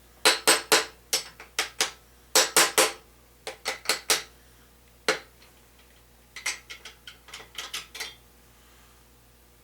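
Sharp metal-on-metal clinks and taps of tools and parts being worked on a 350 small-block short block during teardown. They come in quick runs of three to five, with a longer run of lighter clinks near the end.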